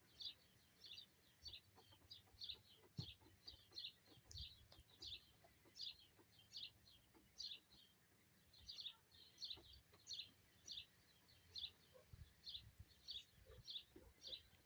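Faint bird chirping: one short, high chirp repeated evenly about three times a second, on and on.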